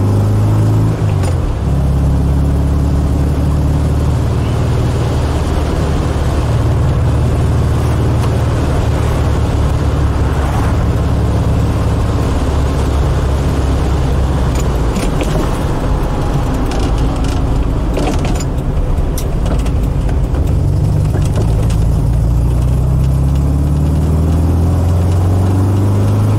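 1968 VW Type 3 Fastback's air-cooled flat-four engine, heard from inside the cabin while driving. The engine note climbs, drops at a gear change about a second in, runs steady, then climbs again under acceleration in the last few seconds, with a few faint clicks near the end.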